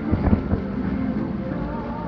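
Distant aerial fireworks shells going off: a few short, muffled thuds near the start over a steady low rumble.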